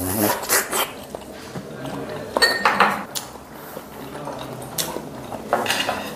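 Tableware clinking: metal utensils tapping and scraping against ceramic dishes and cups, with scattered light knocks and one ringing clink about two and a half seconds in.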